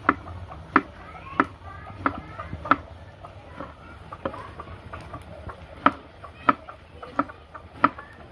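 Knife chopping tomatoes, a sharp knock about every two-thirds of a second.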